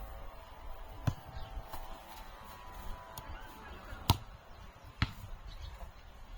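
Three sharp knocks or taps, about a second in, about four seconds in (the loudest) and a second after that.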